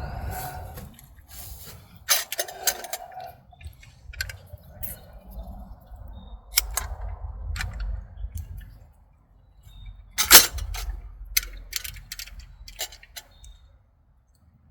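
Scattered sharp clicks and snaps of hands handling things by a campfire, the loudest about ten seconds in, over a low rumble.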